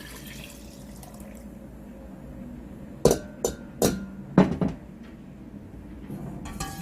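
Liquid being poured into a pot, thinning out and stopping in the first second or so, then five sharp knocks in quick succession about three to four and a half seconds in.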